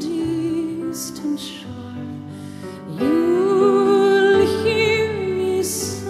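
Background music: a slow, gentle melody of held notes with vibrato, sliding up into a long note about three seconds in.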